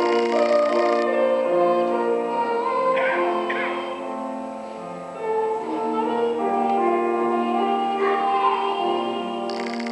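A young girl singing a solo in a cathedral's reverberant space, with instrumental accompaniment holding sustained notes beneath her voice.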